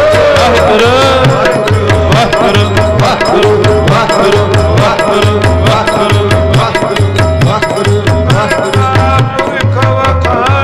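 Sikh kirtan: a man singing a devotional hymn with a sliding, melismatic melody, strongest in the first couple of seconds. He is accompanied by held instrumental notes and a steady tabla beat with deep bass strokes.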